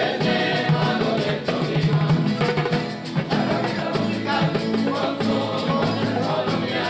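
Music with a singing voice over a rhythmic instrumental accompaniment.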